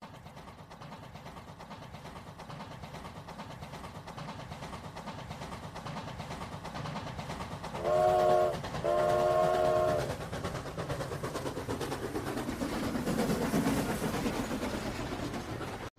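Train running with a steady rumble, sounding two short chord horn blasts about eight and nine seconds in; the rumble swells again near the end.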